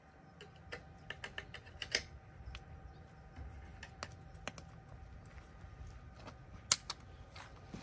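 Hand caulking gun clicking as its trigger is worked against concrete blocks: a quick run of sharp clicks between one and two seconds in, then scattered single clicks, the loudest near the end.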